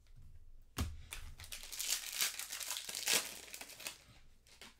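Trading-card pack wrapper crinkling as it is torn open and handled, a dense crackle lasting a couple of seconds. A sharp knock comes about a second in, and a few small clicks near the end.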